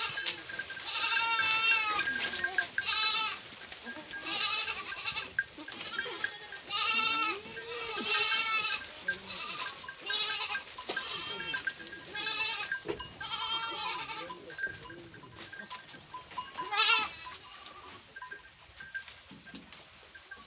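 Goats bleating again and again, about ten wavering calls a second or two apart, some overlapping from different animals. A last sharp, loud bleat comes near the end, after which the calls stop.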